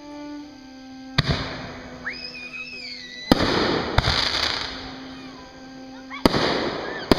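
Fireworks going off: five sharp bangs, the first about a second in and the last at the very end, each trailing off into a crackling hiss. Music with held notes plays underneath.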